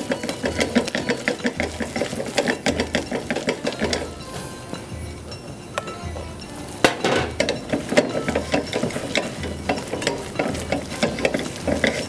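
Wire whisk beating in a stainless steel saucepan, quick rattling strokes against the pot as tapioca flour is worked into hot milk and butter to form a dough. The strokes ease off for a few seconds midway, then pick up again with a sharp clink.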